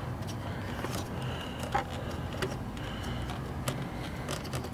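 Scattered light clicks and plastic taps from hands pressing the ignition coil's wiring connector back on, over a faint steady low hum; one sharper click comes a little under two seconds in.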